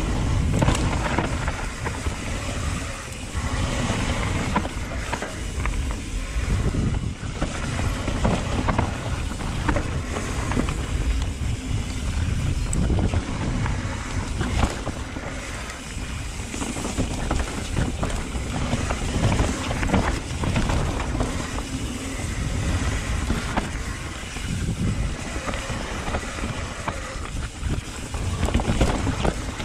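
Mountain bike riding fast down a dirt forest trail: wind buffets the microphone over a steady rush of tyres on dirt, with frequent knocks and rattles as the bike goes over bumps.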